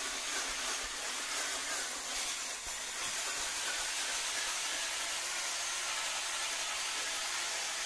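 Parkside PAAP 12 C3 polisher running at low speed, its foam pad spinning over wet faux leather with a steady, even hiss.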